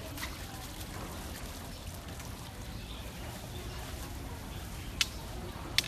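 Steady water noise, like water running or pouring into a pool, with two short sharp clicks, one about five seconds in and one just before the end.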